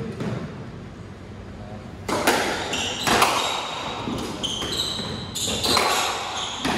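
Squash rally: the ball cracked by rackets and smacking off the court walls in a run of sharp hits starting about two seconds in, with short high squeaks of shoes on the wooden floor between the shots.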